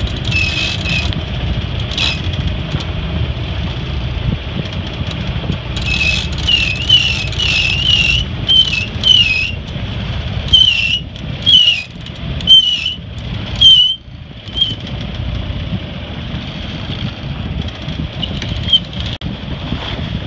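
Repeated high, pitch-bending squeaks from a Hunter 27 sailboat's lines and winch as the roller-furled headsail is unfurled and its sheet hauled in. The squeaks come about twice a second from about a third of the way in, then slow and stop a little past the middle, over steady low wind noise.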